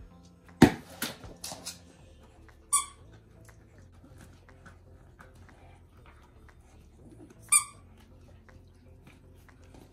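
A dachshund chewing a rubber squeaky ball: two short, high squeaks about five seconds apart. Before the first squeak comes a louder burst of noise with a few trailing bumps, the loudest sound here.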